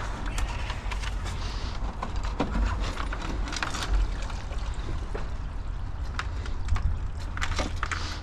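Water being tipped out of a pail of nails, the nails clinking and knocking against the pail, over a steady low rumble.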